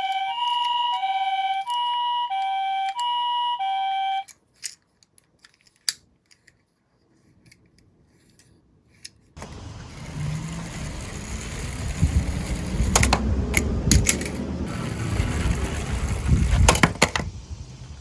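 Two-tone ambulance siren, switching between a higher and a lower pitch about every half second, which cuts off about four seconds in. From about nine seconds in a toy minicar rolls down a plastic slope: a rumbling rattle with several sharp clacks.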